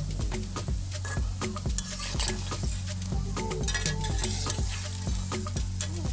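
Banana fritters deep-frying in a metal karahi of oil, sizzling, while a metal spatula stirs and turns them with frequent clicks and scrapes against the pan. A steady low hum runs underneath.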